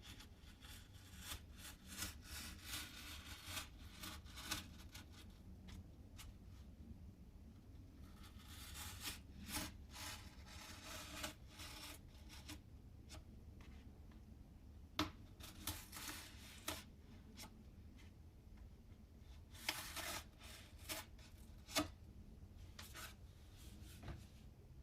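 Stanley knife blade cutting fin slots into a rocket booster tube: several bouts of short scratchy slicing strokes, with a few sharp clicks in between.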